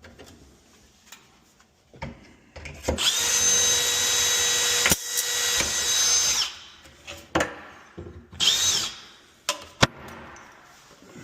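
Power drill running: one steady whine of about three and a half seconds that spins up and winds down, then a short second burst, with knocks and clicks of handling between.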